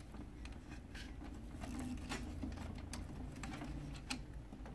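Faint, scattered plastic clicks and scrapes of a pickup roller being worked into its bracket inside an HP M451 laser printer, its bottom posts being seated in the bracket's cutouts. A low steady hum runs underneath.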